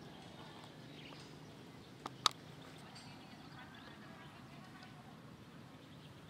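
Low, steady outdoor background noise with faint scattered chirps, broken by two sharp clicks a fraction of a second apart about two seconds in.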